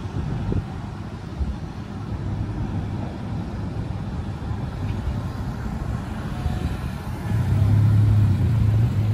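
Road traffic: a steady low rumble of vehicle engines and tyres, with one vehicle's engine hum growing louder about seven and a half seconds in.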